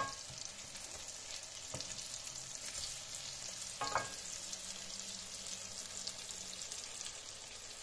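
Flour-and-egg-coated eggplant slices frying in vegetable oil in a pan, with a steady sizzle. Wooden spatula and fork knock against the pan a few times as the slices are turned, most sharply at the start and about four seconds in.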